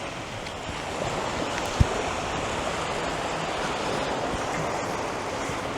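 Sea surf washing onto the beach in a steady rush, with one short thump a little under two seconds in.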